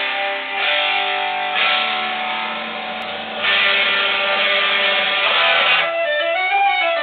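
Guitar-led music playing, with fuller, denser passages coming in and out.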